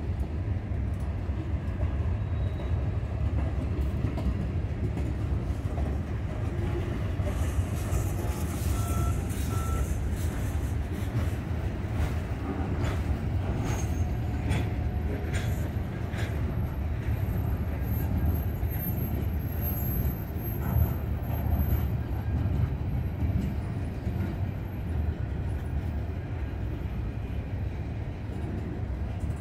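Freight train of covered hopper and tank cars rolling past close by: a steady low rumble of steel wheels on rail, with scattered clicks and clanks through the middle stretch. A thin high squeal rises over it for several seconds past the middle.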